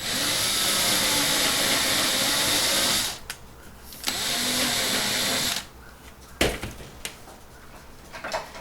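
Small power drill running in two bursts, about three seconds and then about a second and a half, boring out the rivet post that holds a diecast toy car's metal base on. A few light clicks and a knock follow.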